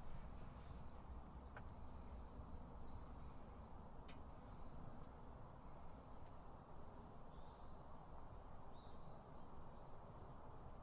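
Faint woodland ambience: a steady low background rumble with small birds chirping in short high phrases, a couple of seconds in and again through the second half. Two small clicks are heard.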